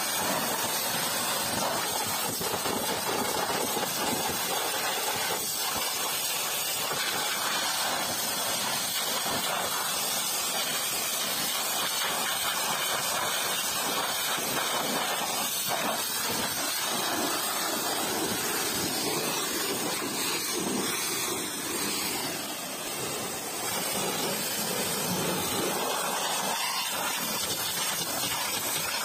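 High-pressure washer jet spraying water onto a car's wheel, bodywork and the wet pavement: a steady hiss that eases briefly about three-quarters of the way through.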